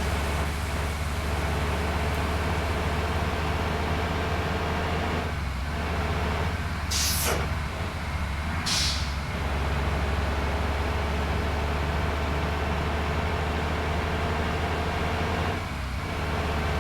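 Large bus's diesel engine running with a steady low drone, with two short hisses of compressed air from the air brakes about seven and nine seconds in.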